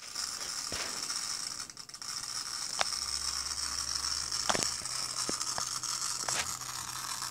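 Strange mechanical noise from an Asus tablet-computer that will not power on: a steady high-pitched hiss with a low hum coming in partway through and sharp clicks at irregular intervals.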